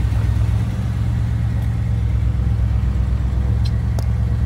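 1971 Chevy Blazer's engine idling, a steady low rumble heard from inside the cab, with a couple of light clicks near the end.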